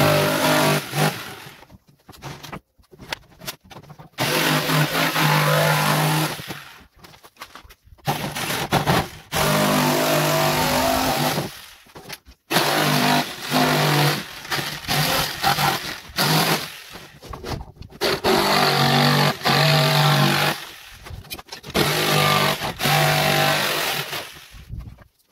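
Electric jigsaw cutting through a wooden board, its motor and blade running in short runs that start and stop abruptly, with brief silent gaps between.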